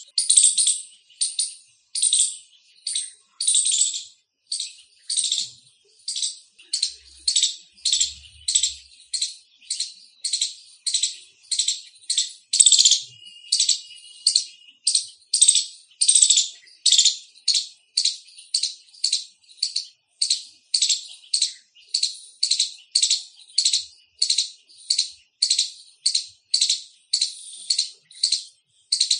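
Indian palm squirrel giving its loud chirping call: a steady run of short, sharp, high-pitched chips, about one and a half a second.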